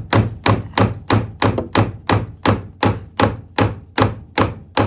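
Claw hammer driving the captive nail of a plastic nail-on electrical box into a wooden wall stud: about fourteen quick, even blows, roughly three a second.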